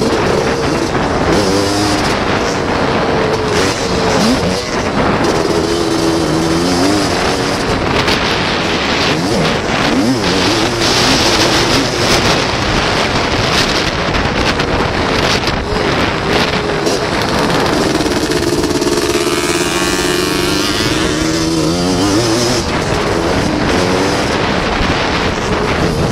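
Racing ATC three-wheeler engine heard onboard, revving up and down hard as the rider works through the throttle and gears, under a rush of track noise. Around two-thirds of the way through it holds a higher, steadier rev for a few seconds.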